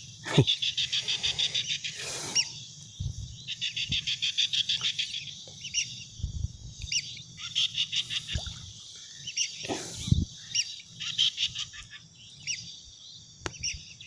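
Bekerek calls: trains of rapid, high chattering clicks, each about a second long, repeating every few seconds. Between them come low knocks and rustles of a caught bekerek being handled and worked free of the trap.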